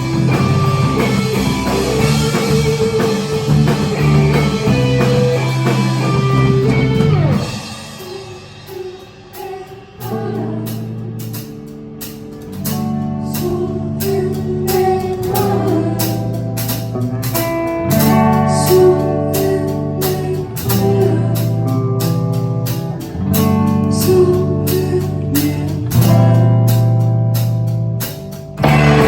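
Indie rock band playing live with guitars and drum kit: a dense, loud full-band passage for about the first seven seconds drops to a sparser section of repeated drum hits over held guitar and bass chords, and the full band comes back in near the end.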